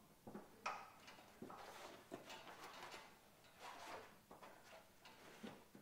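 Faint handling noises: soft rustles and several light clicks as a red fabric knife roll is hung on a camp kitchen's aluminium frame.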